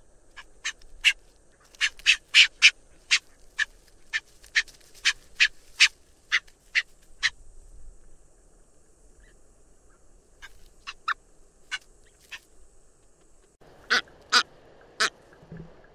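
Brown booby calling: a quick run of short, sharp calls, two or three a second, then a few scattered calls, and near the end three louder calls over a new background hiss.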